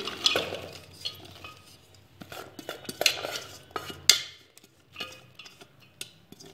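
A steel bowl clinking and knocking against the rim of a pressure cooker as chopped vegetables are tipped and pushed into it. The knocks are scattered and irregular, with the sharpest about four seconds in.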